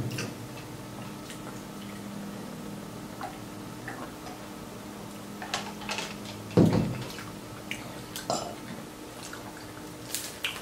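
Eating sounds: scattered soft chewing and wet mouth clicks from people eating fried shrimp dipped in Alfredo sauce, with one louder bite or thump about six and a half seconds in, over a faint steady hum.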